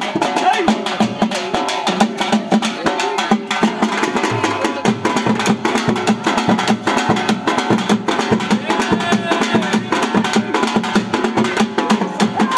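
Live folk music led by rapid, steady hand drumming on a frame drum and tabla-type drums, with a pitched melody line running over the beat.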